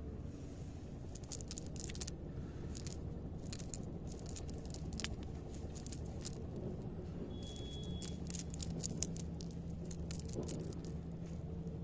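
Wet fishing net and tangled water weeds being handled and pulled apart by hand: irregular rustling and crackling clicks, over a steady low hum.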